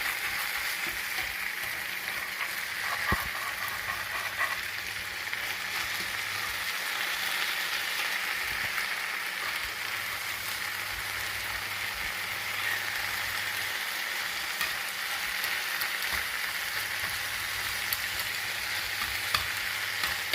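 Chicken thighs frying with onions, paprika and garlic in a pan: a steady sizzling hiss, with a light click of the stirring utensil about three seconds in and a few more near the end.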